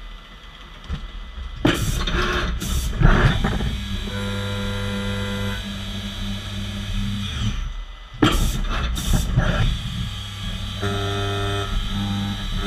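Fanuc Robodrill CNC machining center at work on a plastic part: a steady pitched machine whine that comes and goes, broken twice by a few short, loud bursts of rushing noise.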